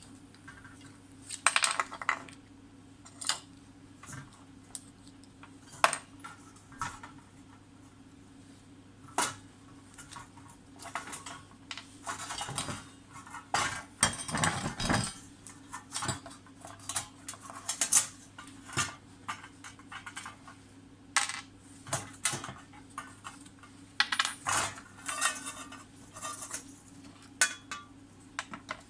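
Small metal parts and tools clinking and knocking against a hard surface in irregular clusters, as lamp parts are handled during the repair, over a steady low hum.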